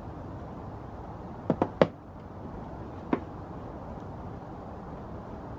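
Sharp plastic clicks from prying at a small square access-panel cover in the Toyota RAV4 Prime's hatch-lid trim: three quick clicks about a second and a half in, then one more about a second and a half later, over a steady low background noise.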